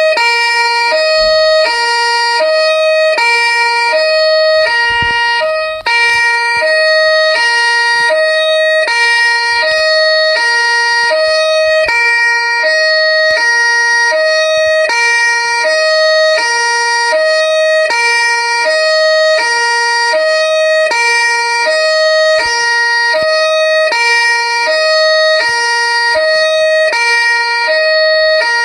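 Two-tone police siren ringtone: a high and a low tone alternate evenly, about one pair a second, over a steady high whine. It dips out for a moment about six seconds in.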